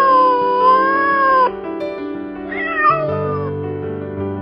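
A domestic cat meowing twice over background music: a long meow with its pitch dipping and rising that ends about a second and a half in, then a shorter one around three seconds in.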